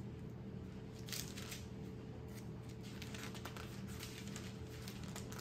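Bible pages being leafed through: several brief, soft paper rustles over a faint steady hum.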